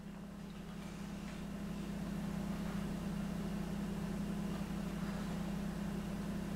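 A steady low hum with a faint hiss over it, unchanging throughout: background room tone.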